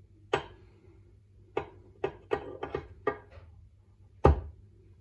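Steel engine parts clicking and knocking as the timed-breather components and camshaft are fitted into a BSA A65 crankcase half: about eight irregular sharp clicks, ending with one heavier knock as a part seats near the end.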